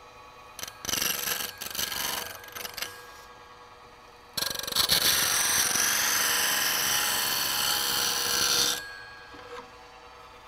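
A Tradesman DC bench grinder's wheel hollow-grinding the bevel of a steel hand-plane blade held in a tool holder, at about 1500 RPM. A few short bursts of grinding come in the first three seconds. They are followed by one steady grind of about four seconds that stops abruptly, with the grinder's faint hum underneath.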